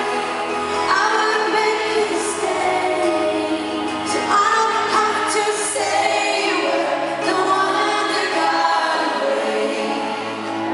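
Live pop song: a woman singing lead over acoustic guitar, with two women singing backing harmonies.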